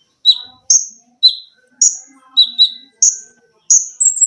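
Konin songbird singing: loud, sharp notes, each dropping quickly in pitch, given about two a second and alternating between a higher and a lower note, with a quick run of high notes near the end.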